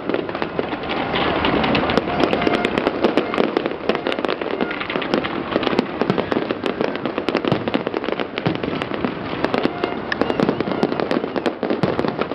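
A fireworks display at full intensity: many aerial shells and effects going off at once, making a dense, continuous crackle of sharp pops and bangs with no pause.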